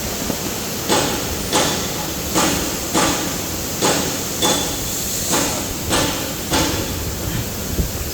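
Band saw maxi roll paper towel cutting machine running, with a quick, even series of about nine cutting strokes, roughly one every two-thirds of a second, over the machine's steady hiss; the strokes stop a little before the end.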